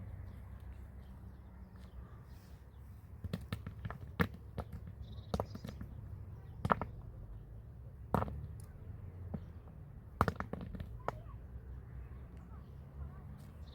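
A series of sharp knocks at uneven intervals, roughly one every second or two and some in quick pairs, over a low steady background.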